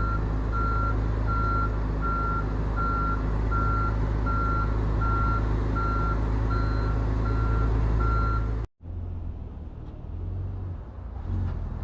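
Truck's reverse warning alarm beeping at an even pace, a little faster than one beep a second, over the low running of the truck's engine. The beeping and the engine sound cut off suddenly near the end, leaving a quieter engine rumble.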